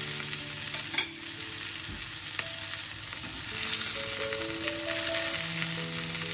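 Two duck breasts sizzling steadily in hot fat in a frying pan. Metal tongs clink sharply against the pan about a second in.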